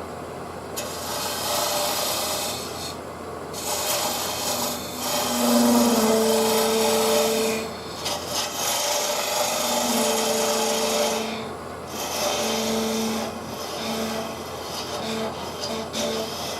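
Tool working a spinning maple burl bowl on a wood lathe, a rasping scrape in passes of a few seconds each, with a low hum that comes and goes with them.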